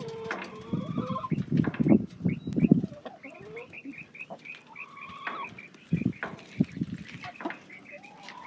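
Chickens clucking, with a quick string of short, high calls near the middle.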